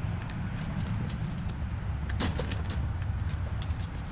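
A trapped feral cat moving about inside a wire-mesh cage trap, with scattered light clicks and rattles of the wire and one sharper knock about halfway through, over a steady low rumble.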